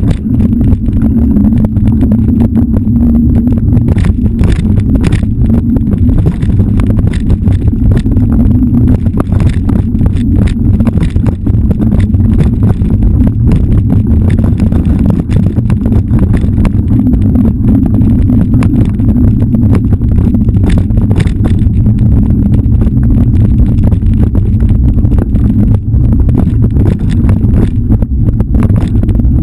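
Loud, continuous low rumble with many sharp knocks and rattles: ride noise picked up by a camera on a vehicle travelling fast along a bumpy dirt forest trail.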